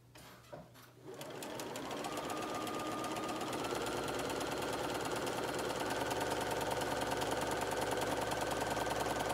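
Bernina sewing machine starting up about a second in, speeding up over the next few seconds with its motor whine rising slightly, then stitching a seam at a steady, rapid needle rhythm.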